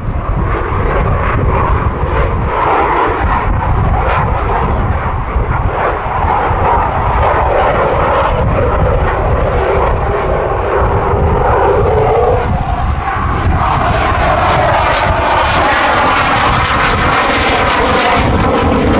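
Loud, steady jet roar from a RAF Eurofighter Typhoon's twin turbofan engines as it flies past, dropping in pitch about two-thirds of the way through and then growing brighter.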